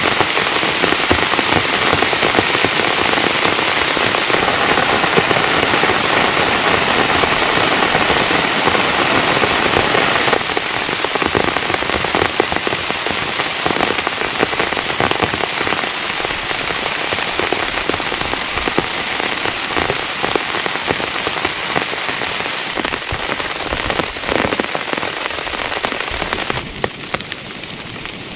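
Heavy rain falling and pattering on a surface, a dense, steady patter of countless drops. It gets quieter in two steps, about ten seconds in and again near the end.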